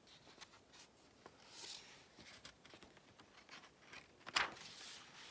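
Paper pages of a picture book being handled and turned: soft rustling and sliding, with a sharper crackle of the page flipping over about four seconds in.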